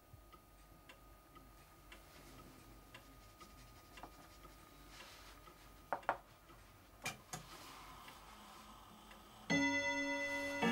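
A clock ticking steadily at about two ticks a second, with a few sharp knocks of wooden chess pieces set down on the board about six and seven seconds in. Near the end a bell-like chime rings out and hangs on.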